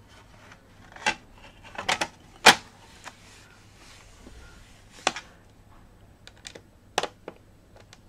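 Bottom cover panel of a Dell Latitude E6410 laptop being set on and pressed down, giving a series of sharp clicks as it seats, about eight in all; the loudest comes about two and a half seconds in.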